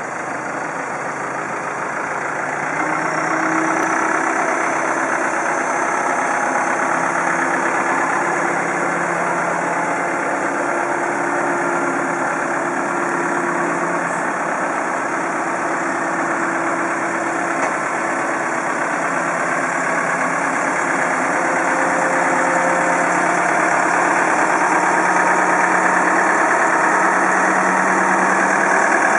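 Manitou MRT 1840 rotating telehandler's diesel engine running steadily at idle, growing a little louder about three seconds in.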